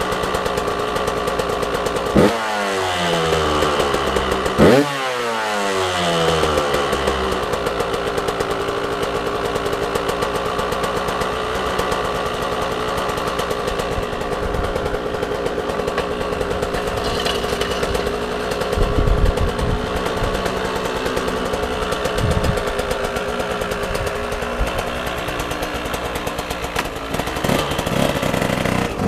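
KTM SX 125's single-cylinder two-stroke engine idling on its stand, blipped twice with quick revs that rise and fall away about two and five seconds in. It then idles steadily until near the end, when the note changes as the bike is ridden off.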